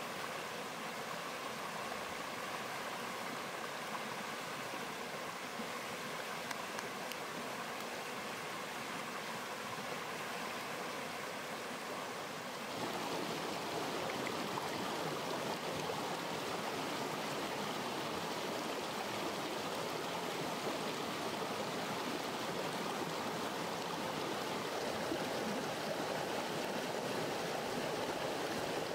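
Steady rush of a rocky stream, water running over stones in small cascades. About halfway it suddenly becomes louder and fuller, then holds steady.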